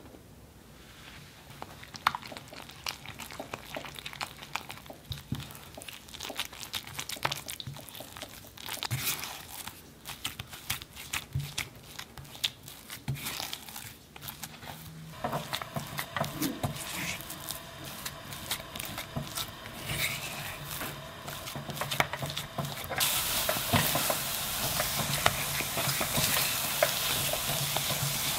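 Silicone spatula stirring and scraping choux pastry dough in a stainless steel saucepan: flour being beaten into melted butter and water until the dough comes together. About three-quarters of the way in, a steady sizzle rises as the dough is worked over the heat to dry it out.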